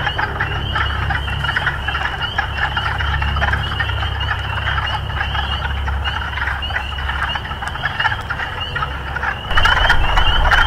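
A dense chorus of frogs calling, many short repeated calls overlapping, over a steady low rumble. The chorus and rumble get louder about nine and a half seconds in.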